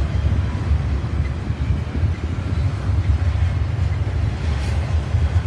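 CN double-stack intermodal container cars rolling past on the rails, a steady low rumble.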